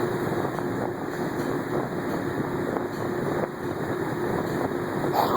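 Steady drone of drilling rig machinery running, with a faint constant hum over an even rushing noise.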